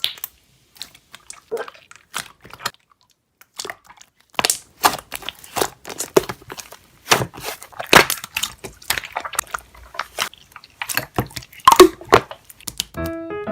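Slime being squeezed and poked by hand, giving irregular crackling, popping clicks and wet squishes. The clicks are sparse at first and come thick and fast from about four seconds in.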